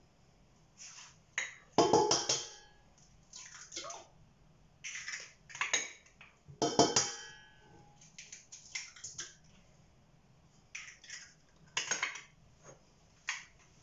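Eggs cracked against the rim of a stainless-steel stand-mixer bowl: two sharp clinks with a brief metallic ring, about five seconds apart, and a softer one near the end, among lighter taps and shell handling.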